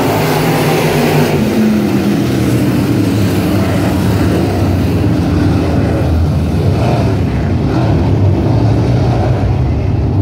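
Dirt-track race cars' engines running at speed as the field laps the oval. One car passes close about a second in, its engine note falling as it goes by.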